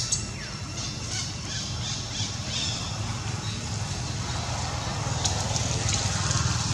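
Young macaque squealing: one sharp, loud squeal right at the start, then a string of short high squeaks over the next couple of seconds, over a steady low rumble.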